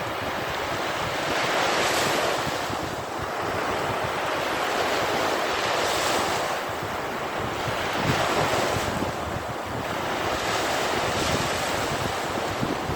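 Sea waves breaking and washing up a sandy beach, the surf swelling and easing every few seconds, with wind buffeting the microphone.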